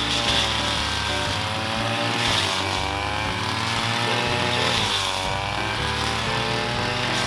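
String trimmer engine running and revving up and down, over background music.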